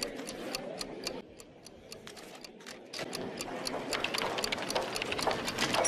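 Even, rapid ticking, about four to five ticks a second, as of a clock-tick sound effect. It dips quieter a little after a second in and builds back up over the last few seconds.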